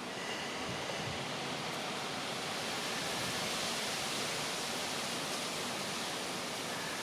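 Steady rush of wind through foliage, an even hiss that swells a little in the middle and eases off again.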